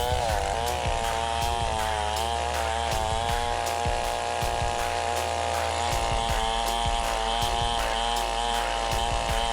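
Chainsaw engine running hard, its note dipping and rising again and again as it cuts, over background music with a steady beat.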